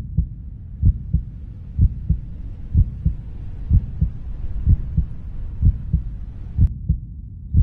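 Heartbeat sound effect: low double thumps, lub-dub, repeating about once a second, over a faint hiss that cuts off suddenly near the end.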